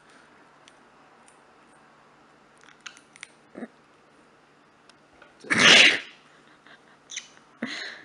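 Faint clicks of a green-cheeked conure's beak nibbling a piece of rutabaga. About five and a half seconds in comes one short, loud, breathy burst, like a sneeze.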